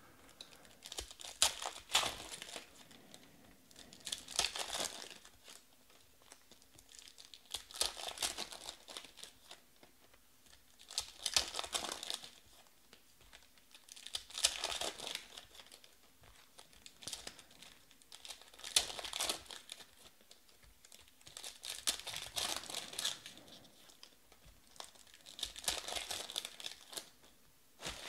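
Trading-card pack wrappers crinkling and tearing as 2020 Panini Select baseball packs are opened one after another, in about eight bursts spaced three to four seconds apart.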